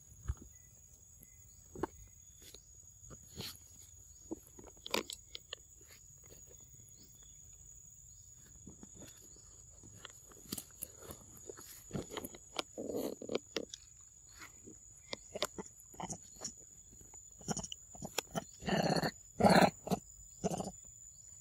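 Macaque monkeys: scattered light clicks and taps of peanuts being handled on a stone block. About eighteen seconds in come a few loud short animal calls, two of them close together, the loudest sounds here.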